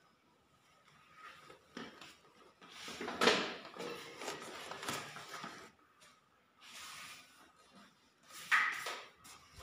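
Irregular scraping strokes of a plastering blade dragged across a skim-coated wall, each stroke under a second long, the loudest about three seconds in.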